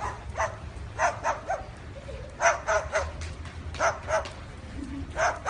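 A dog barking: about ten short barks, mostly in quick groups of two or three.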